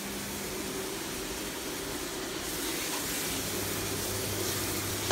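Steady hiss of food sizzling in a frying pan, with a faint steady hum under it, growing a little louder towards the end.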